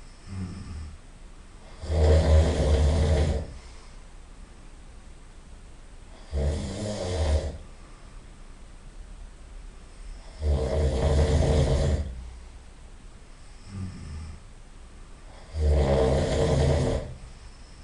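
A person snoring loudly: four loud snores about every four and a half seconds, with softer breathing sounds between.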